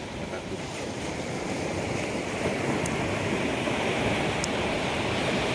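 Sea surf washing on the shore: a steady rush of breaking waves that swells over the first couple of seconds and then holds.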